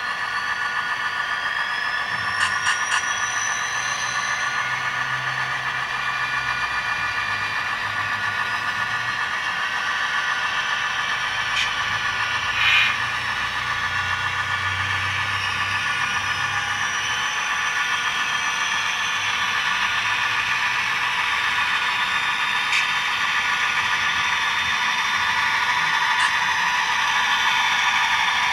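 Sound decoders in HO-scale model diesel locomotives playing a diesel engine's running sound through small speakers, a steady drone with little bass that grows louder as the moving locomotive comes closer. A whine rises in pitch over the first few seconds, and a few short clicks sound about three seconds in and near the middle.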